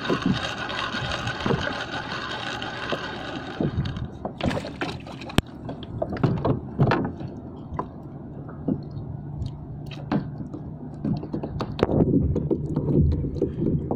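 Spinning reel being wound, a steady whir for about four seconds that stops suddenly. Then scattered clicks and knocks of rod, line and tackle being handled, over water lapping against a kayak hull.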